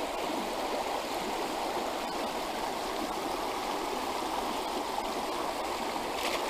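A small, shallow trout stream rushing over stones and riffles: a steady, even rush of flowing water.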